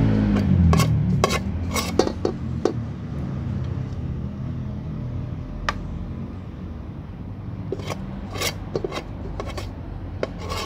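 Metal spoon clicking and scraping on slate plates of food: about a dozen sharp clicks, bunched near the start and again toward the end, over a steady low rumble of traffic.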